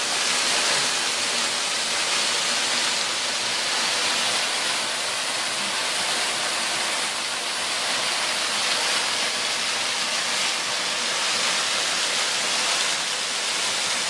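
Ribbon Falls pouring and splashing onto mossy rock close by: a steady, loud rushing hiss of falling water.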